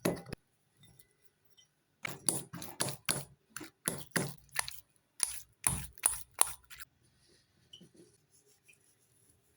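A run of sharp knocks, roughly three a second, starting about two seconds in and stopping after about four and a half seconds, followed by a few faint clicks.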